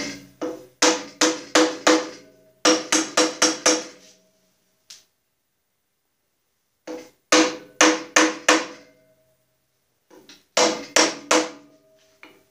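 Hammer blows on a cast-iron bandsaw riser block, tapping it down onto the saw's lower frame: four bursts of quick, ringing strikes, with the longest pause, about three seconds, near the middle.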